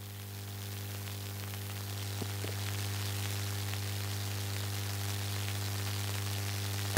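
Steady electrical mains hum from a sound system, a low buzz with a stack of evenly spaced overtones over a layer of hiss, growing slightly louder. Two faint ticks come about two and a half seconds in.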